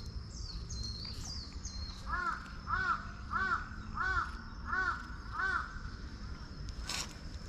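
A crow cawing six times in an even series, about one and a half caws a second. Short, high whistled bird calls come near the start, and there is a sharp click near the end.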